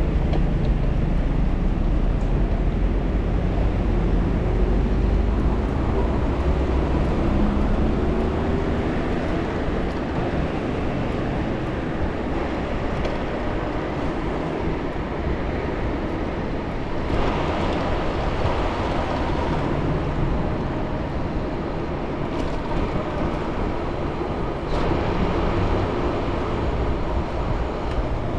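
Steady wind and road noise from riding an e-bike through city traffic, with a low rumble of wind on the microphone and passing vehicles. One vehicle's engine rises in pitch about six to nine seconds in.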